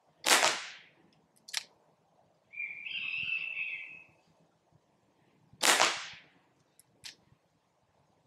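Dan Wesson 715 2.5-inch CO2 pellet revolver firing twice, about five seconds apart, each shot a sharp pop followed a little over a second later by a short click. A drawn-out high call sounds between the two shots.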